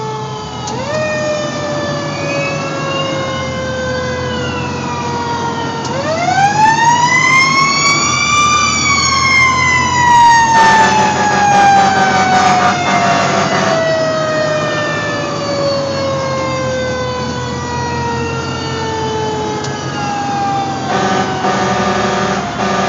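Fire engine siren winding up once, its pitch climbing for about two seconds and then sliding slowly down over the next ten or so. A steady horn blast sounds partway through and again near the end, over the truck's running engine.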